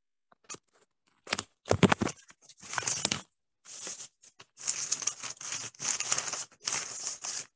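Irregular rustling and crinkling noise in short bursts from about a second in, turning into longer stretches after about four seconds.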